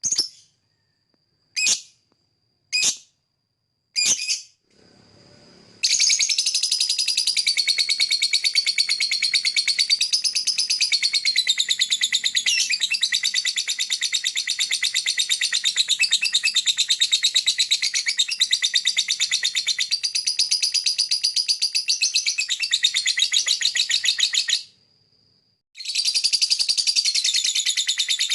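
Lovebird giving a few short, separate high chirps, then breaking into a long, very rapid chattering song (the 'ngekek' keepers prize). The song runs unbroken for nearly twenty seconds, stops for about a second, and starts again near the end.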